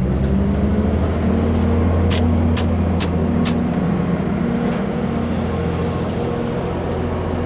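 A motor vehicle's engine idling with a steady low hum. Four sharp clicks come quickly one after another about two seconds in.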